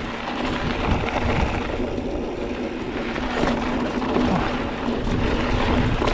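Mountain bike being ridden on a dirt trail: wind rushing over the microphone and tyres rolling over dirt, with a steady low hum throughout.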